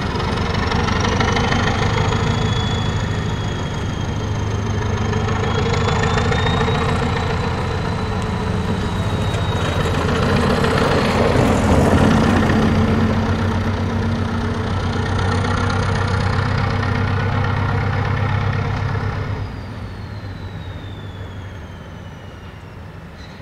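Diesel locomotive hauling a freight train of tank wagons, its engine working hard under load with a steady deep throb. It is loudest about halfway through as it passes and falls away near the end as it pulls off. A thin high whine glides up and down in pitch above the engine.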